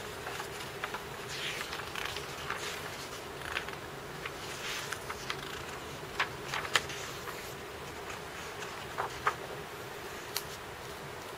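Paper pages of a sketchbook being turned and handled: soft rustling and a few sharp paper clicks, the loudest about six to seven seconds in and again around nine to ten seconds, over a steady low background hum.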